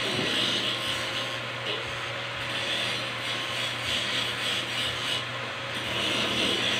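Corded electric hair clippers running with a steady buzz, with a scratchy rasp that comes and goes as the blades cut through hair on the side of the head.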